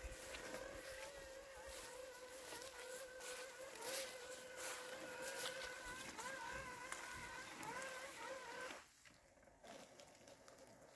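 LandXcape LX790 robotic lawn mower running through tall wet weeds, its electric motors giving a quiet, steady whine that wavers in pitch as the load changes, with scattered light ticks. The whine drops away suddenly near the end.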